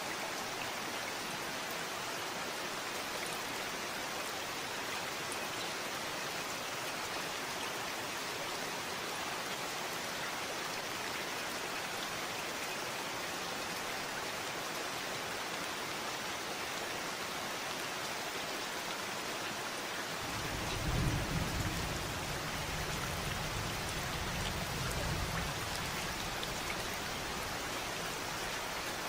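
Steady rain falling, an even hiss of many drops. About two-thirds of the way through, a low rumble swells for some five seconds and fades again under the rain.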